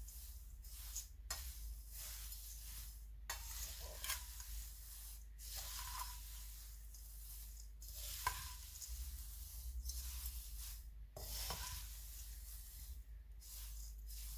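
Dried loose herbs, chamomile and lime flowers, being stirred and swished around a bowl: a dry rustling hiss in repeated sweeps about every two seconds, with a few small light ticks.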